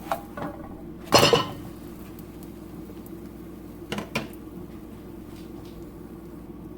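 Cooking pan clattering as a flatbread is flipped in it: one loud metal knock about a second in, then two lighter taps about three seconds later.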